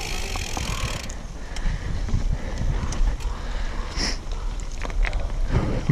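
Mountain bike climbing a dirt trail: wind rumbling on the microphone, tyres rolling over gravel and a few scattered clicks and rattles from the bike.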